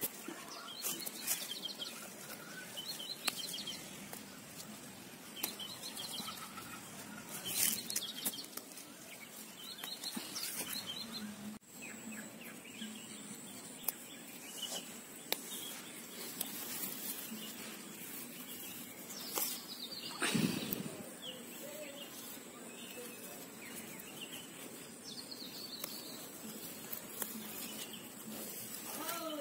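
Birds chirping now and then outdoors, over rustling and handling noise from herbs being gathered among garden plants, with a louder rustle about two-thirds of the way through.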